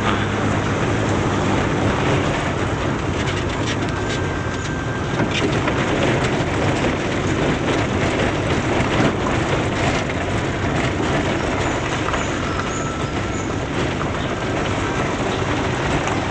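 Suzuki Swift driven slowly over a rough gravel road, heard from inside the cabin: a steady rumble of tyres crunching over stones with the engine running underneath. No jingling rattle comes from the front suspension, the sign that the serviced front end and steering rack are now quiet.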